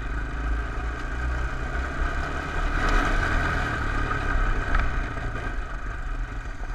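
Honda TRX 250 ATV's single-cylinder engine running as the four-wheeler is ridden over snow, getting louder about three seconds in.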